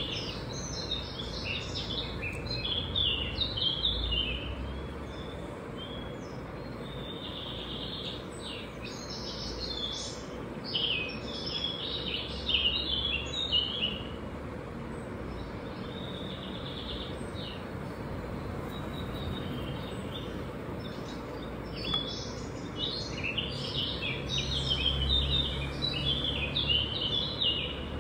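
Small birds chirping and twittering in three busy bouts with quieter gaps between, over a steady low rumble.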